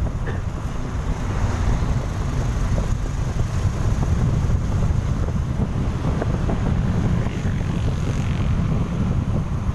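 Wind buffeting the microphone on a moving motorcycle: a steady, gusting low rumble with road and motorcycle noise underneath.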